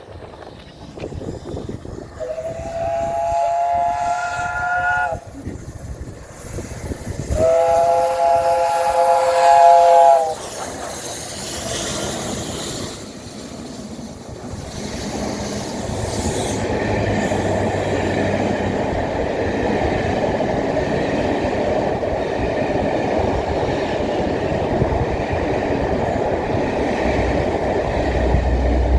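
Steam locomotive 60163 Tornado, a Peppercorn A1 Pacific, sounds two long whistle blasts of several tones together. The train then runs past with a steady rumble of wheels on rail.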